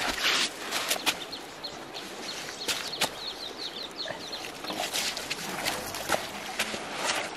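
Footsteps on a gravelly riverbank, irregular sharp steps, over the steady sound of a flowing river. A bird chirps a quick run of short falling notes in the first half.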